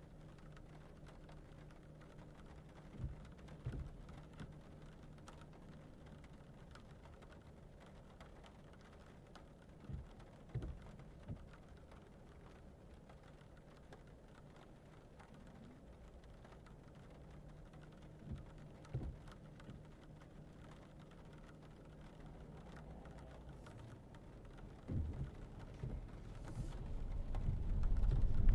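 Quiet cabin of a 2022 Lexus ES300h hybrid, with a low steady hum and pairs of short knocks every seven or eight seconds. Near the end the car's noise rises steadily.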